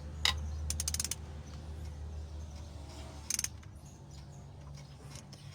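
Socket ratchet clicking in short quick runs, about a second in and again just past three seconds, as the cylinder head bolts are worked down on the 4D56 engine.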